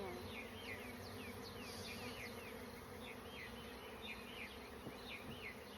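Honeybees buzzing in a steady hum at an opened hive, with many quick high chirps over the hum.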